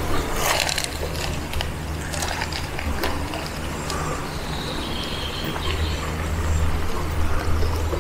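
Wind buffeting the microphone in an uneven low rumble, over the steady rush of a shallow river running over stones, with a few handling clicks early on.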